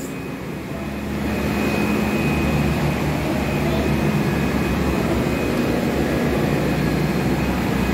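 Steady drone of industrial machinery in a tequila distillery hall: an even roar with a low hum and a faint high whine, unchanging throughout.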